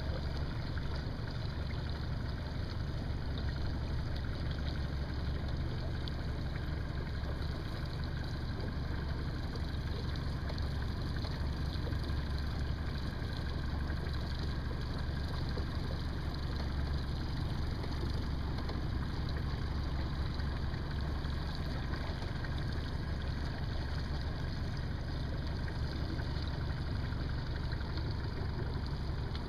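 Outboard motor running steadily at low trolling speed, an even low hum with no change in pitch.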